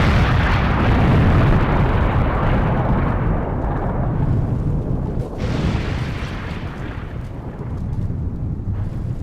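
Explosion sound effect: a blast fading slowly with a deep rumble, then a second blast about five seconds in that also fades.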